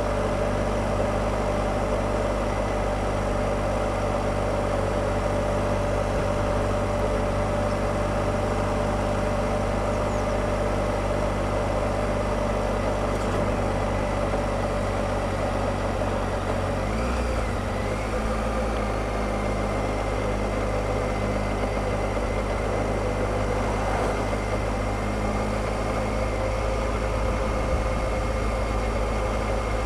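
Triumph Explorer three-cylinder motorcycle engine running at a steady road speed, with a broad rush of noise. The engine note shifts once about halfway through.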